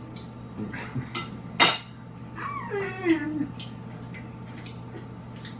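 Metal cutlery clinking against dinner plates in scattered sharp clicks, the loudest about one and a half seconds in, followed by a short falling whine.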